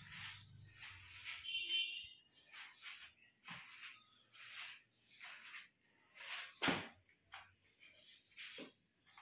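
Faint footsteps scuffing across a gritty, sandy concrete floor at walking pace, each step a short scrape, with one sharper knock about two-thirds of the way through. A brief high chirp sounds about two seconds in.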